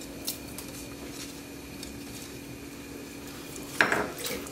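Chicken wings frying in oil and butter in a pot: a faint, steady sizzle with a few small crackles over a steady hum. Near the end there is a louder, brief shuffling clatter as a hand moves the wings around in the pot.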